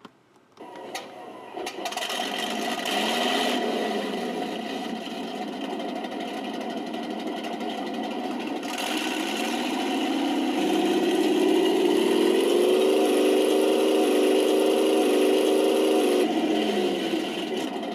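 Simulated tank engine from a Benedini TBS Mini RC sound unit: it starts up about half a second in and idles, revs up from about nine seconds in, holds at the higher pitch, then drops back to idle near the end.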